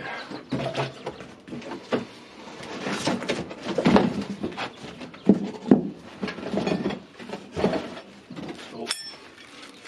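Rummaging through a cardboard box and its packaging: irregular rustling and scraping with a few sharper knocks as parts and attachments are lifted out.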